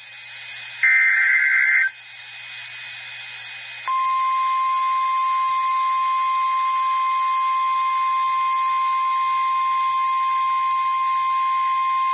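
NOAA Weather Radio alert heard over a radio with a light hiss: the last burst of the SAME data header, about a second of buzzy two-pitch data tones, then a pause and the steady 1050 Hz warning alarm tone starting about four seconds in. It is the signal that a new warning message follows.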